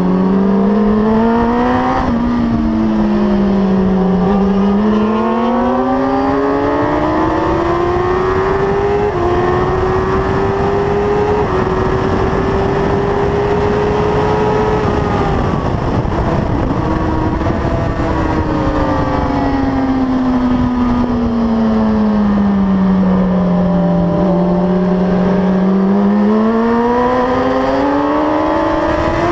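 Onboard sound of a Suzuki 1000cc superbike engine at racing speed. The revs climb through several upshifts and hold high for a few seconds, then fall away for a long stretch and rise again near the end, over heavy wind rush.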